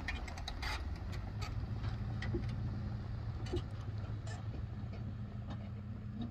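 Pickup truck towing a travel trailer at low speed on a dirt track: a steady low engine rumble with scattered clicks and pops over it.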